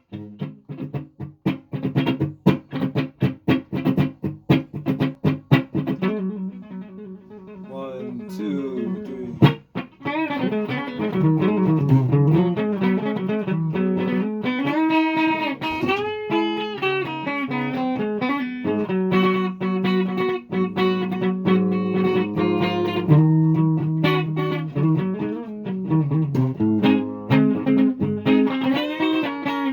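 Guitar playing: fast, evenly repeated picked notes for about the first six seconds, then held notes that slide and bend up and down in pitch.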